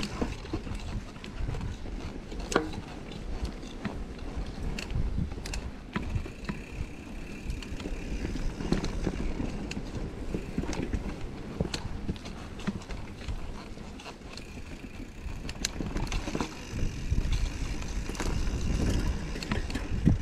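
Mountain bike being ridden on dirt singletrack: tyres rolling over the trail and the bike rattling, with scattered sharp knocks and clicks over a steady low rumble.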